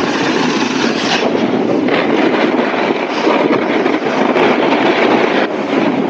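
Snowboards scraping and chattering down hard, icy snow on a steep slope: a loud, steady rough rasp that swells and eases at times.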